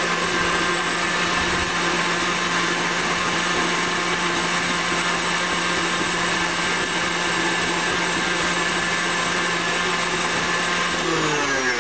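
KitchenAid stand mixer running steadily, its wire whisk beating chocolate pudding in the steel bowl. Near the end the mixer is switched off and the motor's pitch falls as it winds down.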